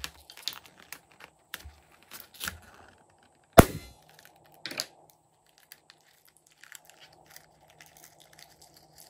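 A rubber balloon being squeezed and rubbed in the hands, then one sharp pop about three and a half seconds in as it bursts. After that come soft crinkles and small clicks as the torn balloon skin is handled.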